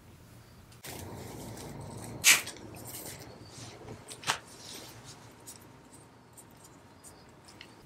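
Bunches of cut leafy stems rustling as hands handle and pull sprigs apart, with two sharp clicks, the louder one a little past two seconds in and another about two seconds later, then faint light ticks.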